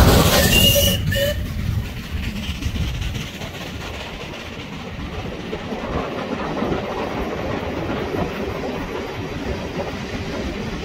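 Coaches of a steam-hauled train rolling past on the climb, wheels clicking over the rail joints. The locomotive, Southern Railway Merchant Navy class Pacific No. 35018, is loud at first as it works up the bank and fades over the first couple of seconds, leaving the steady rumble of the carriages.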